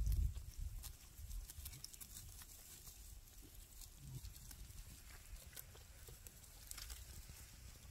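Sheep grazing: crisp, irregular ticks of grass being torn and chewed. A low rumble at the start fades out within the first half second.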